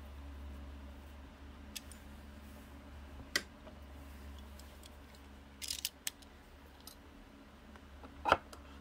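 Scattered small clicks and taps of a plastic utility knife being handled with a small screwdriver while its blade is changed, with a sharp click about three seconds in and the loudest near the end, over a steady low hum.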